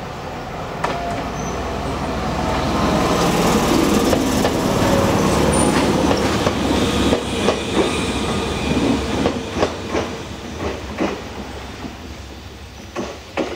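Jōmō Electric Railway electric train passing. Its noise builds over the first few seconds, then gives way to a run of clickety-clack wheel clicks over the rail joints that fades toward the end.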